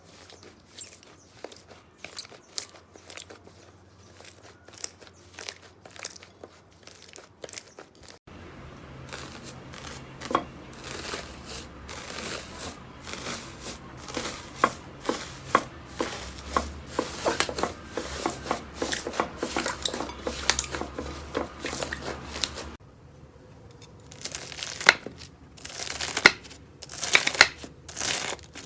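Slime being squeezed, stretched and poked by hand, giving dense crackling and sharp popping clicks. The texture of the crackle changes about eight seconds in and again near the end, as one batch of slime gives way to another.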